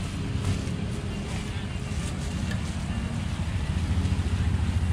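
Steady low engine rumble of street traffic, growing a little louder near the end, with faint voices in the background.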